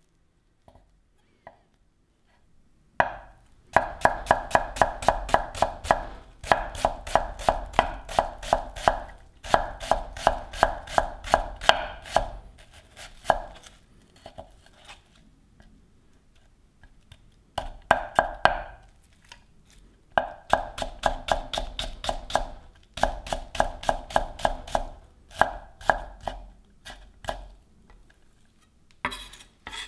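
Kitchen knife mincing an onion on a ginkgo-wood cutting board: fast, even chops, about five a second, each knocking the blade on the board. The chopping starts about three seconds in and comes in runs of several seconds with short pauses between them.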